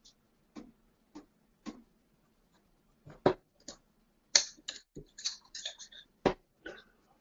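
A string of sharp clicks and knocks from steel-tip darts striking a bristle dartboard and being handled and pulled out, uneven in strength, with a quick cluster around five to six seconds in. A faint steady low hum runs underneath.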